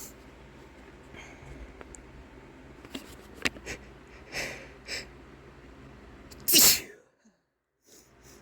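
A man sneezing from chhinkni sneezing powder. A few shorter, sharper bursts come in the middle, then one loud full sneeze about six and a half seconds in.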